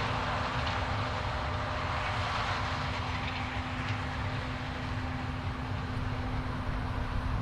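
Heavy farm harvest machinery running steadily, a constant mechanical hum with one steady tone under it.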